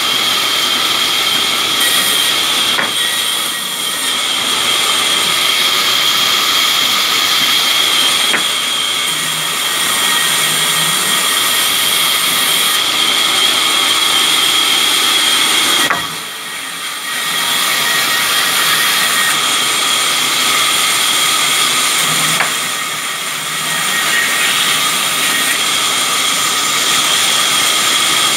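Sawmill band saw running and cutting wooden planks: a loud, steady high whine over a hiss. It drops off briefly about 16 seconds in, and again more gently around 23 seconds.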